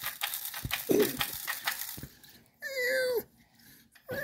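VTech Kitty Cat toy cassette player: a quick run of clicks for about two seconds, then a synthesized cat meow from the toy's speaker about two and a half seconds in, its pitch falling at the end. A second meow starts near the end.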